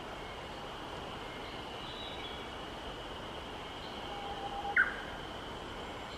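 Japanese bush warbler giving one song phrase about four seconds in: a held low whistle that swells, then a sudden loud, sharp higher note. A steady high-pitched drone runs underneath.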